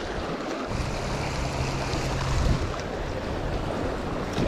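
Small creek's water running steadily, with a low rumble on the microphone from about a second in and a short knock near the end.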